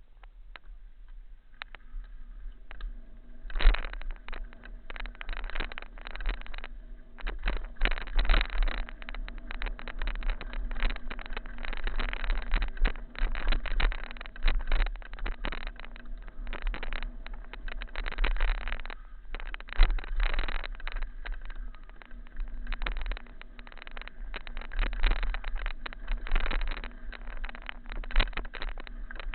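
Wind buffeting an action camera's microphone, with rattling jolts from a ride over rough trail, uneven and loud throughout after a quieter first few seconds.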